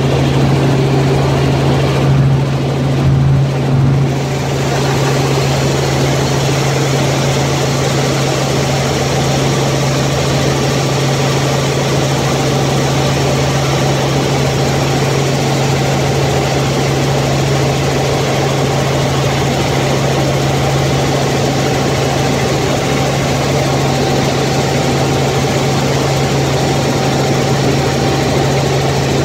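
Helicopter in flight heard from inside the cabin: a steady low drone of engine and rotor under a constant rushing noise. It is briefly uneven about two to four seconds in, then holds even.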